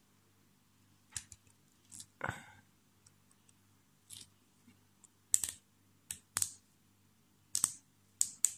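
Dual-pivot road-bike brake caliper being handled and squeezed by hand: about eight short, sharp clicks scattered over the stretch as the arms and parts snap back.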